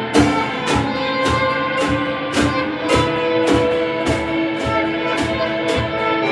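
Live band playing an instrumental in a Middle Eastern–Turkish folk style: two electric guitars playing held, ringing melody lines over a drum kit keeping a steady beat.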